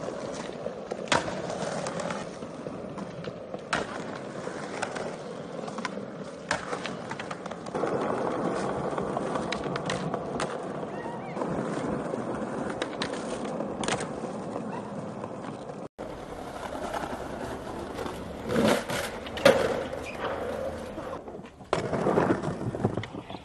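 Skateboard wheels rolling over concrete, broken by sharp wooden clacks of tail pops and board landings. The loudest clacks come about two-thirds of the way through.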